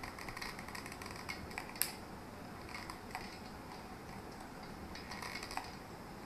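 Scattered light clicks and crackles from a thin plastic bottle and a hot glue gun being handled as the bottle is glued down onto a sheet. The sharpest click comes about two seconds in.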